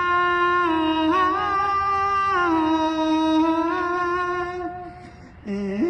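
A woman singing a slow ballad unaccompanied, stretching the word "alive" over long held notes that step up and down in pitch. The note trails off about five seconds in, and a new one starts with an upward slide near the end.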